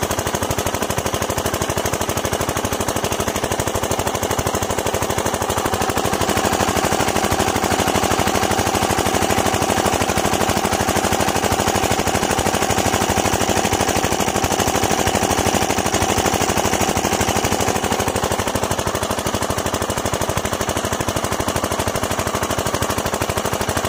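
Topland 5 HP single-cylinder diesel engine running steadily under load, driving a water pump, with a rapid, even firing beat. A higher hum joins in for a stretch in the middle.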